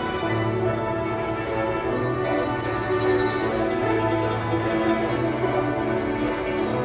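A guzheng ensemble playing, with many plucked zither strings ringing together over repeated low notes.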